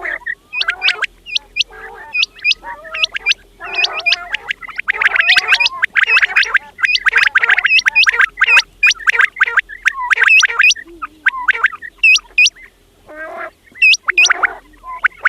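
Many quails calling at once in a dense chorus: rapid short, sharp calls overlapping with lower warbling notes. It thins out briefly a couple of seconds before the end.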